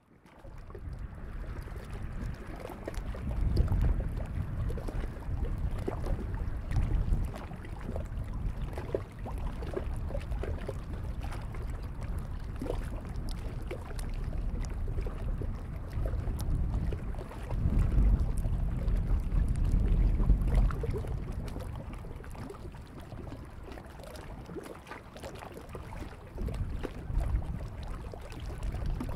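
Wind gusting across the microphone in low rumbling surges that swell and ease, strongest about four seconds in and again around eighteen to twenty seconds in. Under it are faint, irregular small sounds of water lapping at the shore.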